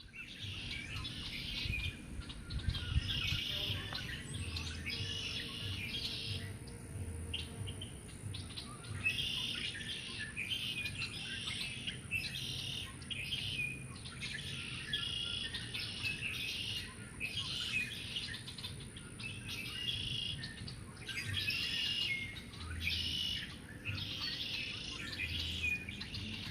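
Songbird singing, short phrases of about one to two seconds repeated over and over with brief pauses between them, over a faint steady high-pitched tone.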